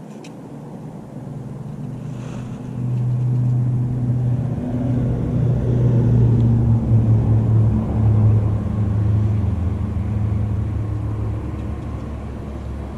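Motorboat engine passing: a steady low drone that builds over the first few seconds, is loudest around the middle, then slowly fades.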